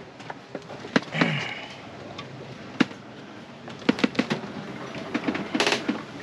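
Scattered clicks and knocks as cupboard and fridge doors and an aluminium soda can are handled in a sailboat's galley, with a brief rattle near the end, over a steady rush of noise.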